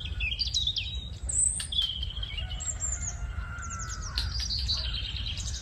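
Several birds chirping and singing: short, high whistled notes and quick chirps, some sliding in pitch, over a steady low rumble.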